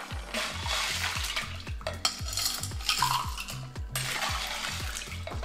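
A metal ladle stirs and scoops through ice and pineapple cider in a glass drink dispenser, with ice clinking and liquid sloshing; the loudest clinks come about two and three seconds in. Under it runs background music with a steady beat and bass.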